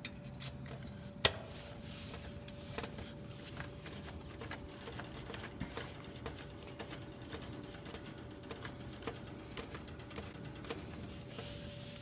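Light metallic clicks and taps of a hand screwdriver fastening the capacitor's mounting bracket in the AC unit, with one sharper click about a second in. A faint steady hum runs underneath.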